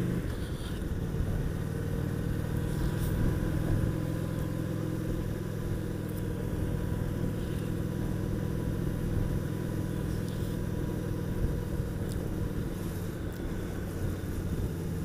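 Honda VT750S's V-twin engine running steadily as the motorcycle rides along, its pitch holding nearly level.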